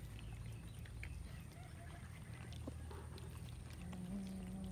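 Several cats chewing and tearing at a raw chicken carcass, with scattered small wet clicks and a steady low hum underneath. A short pitched sound comes in near the end.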